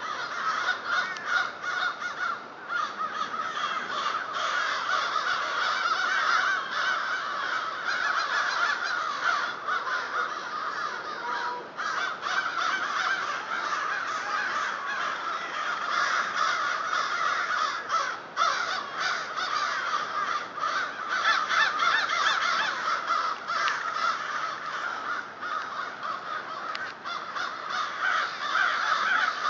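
A large flock of birds calling from the trees, many calls overlapping without a break into a dense, steady din.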